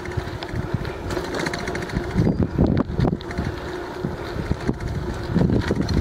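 A bicycle riding along a paved trail: wind on the microphone and a steady mechanical rattle, with a few louder knocks about midway and again near the end.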